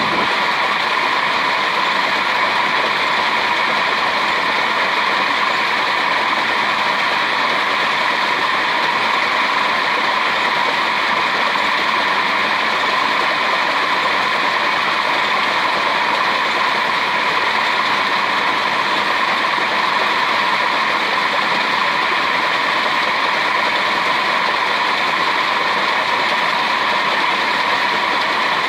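Small hydro power rig driven by tube-well water running steadily, its large pulley turning in a pillow-block bearing: an even, unbroken whirring rush that does not change.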